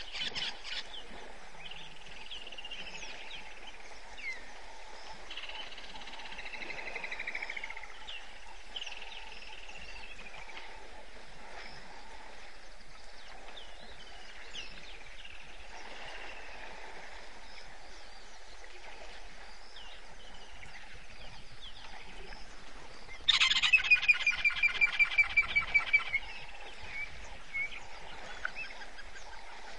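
Wild birds calling over a waterhole: repeated falling whistled calls, then about 23 seconds in a loud run of about a dozen quick, evenly spaced calls lasting some three seconds.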